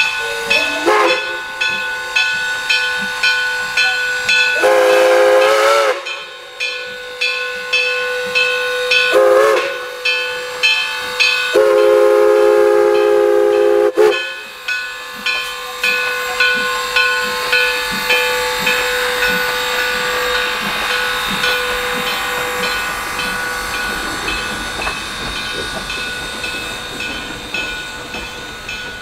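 Steam locomotive #1702 blowing its whistle four times: a short rising note, a long blast, a short one, then the longest. Its bell rings steadily, about one and a half strokes a second, over steady steam hiss. The sound grows gradually fainter through the second half.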